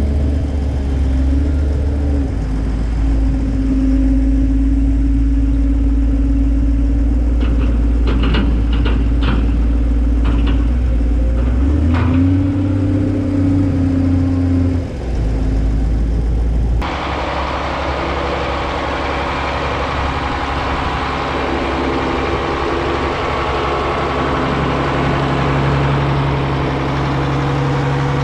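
A farm vehicle's engine running steadily, its note shifting a few times. About two-thirds of the way through the sound switches abruptly to a different steady engine note.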